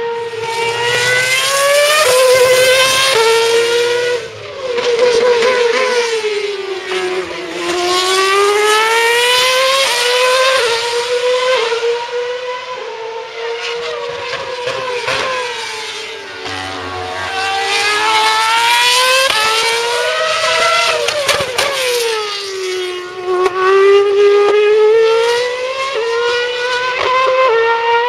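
Formula 1 cars' 2.4-litre V8 engines at high revs, several cars passing in turn. The pitch climbs in quick steps as they accelerate through the gears and sweeps down as they brake and slow for corners.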